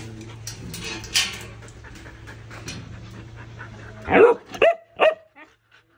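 Huskies panting excitedly at a pen gate, then three short, loud whining yelps close together near the end.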